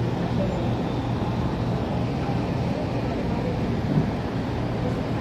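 Steady street din: a low rumble of passing motorcycles and auto rickshaws, with indistinct voices and a brief knock about four seconds in.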